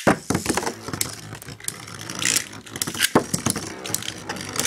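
Beyblade spinning tops launched into a plastic Beystadium, landing with a sharp clack at the start, then scraping and clattering with a rapid run of clicks as they spin, collide with each other and bounce off the stadium walls.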